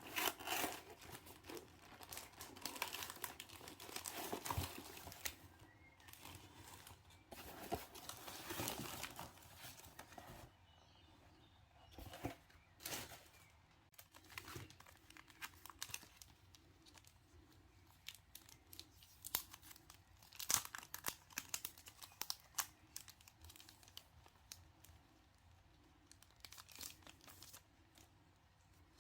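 Packaging being handled and opened: irregular crinkling and tearing with small clicks, busiest in the first ten seconds, then sparser.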